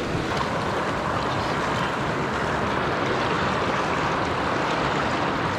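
Fast-flowing mountain river rushing over cobbles and rocks: a steady wash of moving water.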